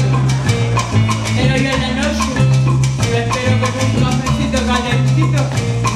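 Salsa-style Latin music playing, with a steady repeating bass line and sharp percussion hits.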